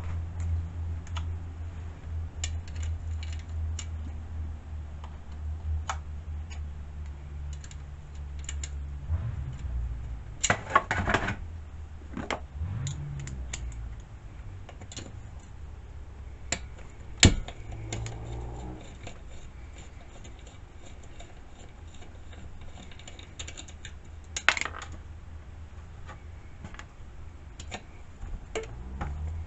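Irregular metal clicks and ticks from a small socket and ratchet working the muffler nuts on a chainsaw, with sharper knocks of tools and parts handled now and then. A steady low hum sounds underneath for the first nine seconds or so, then fades.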